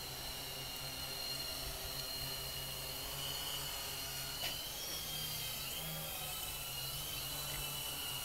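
Hexacopter's electric motors and propellers whirring steadily in flight, with a high whine that wavers in pitch from about five seconds in, and one short click near the middle.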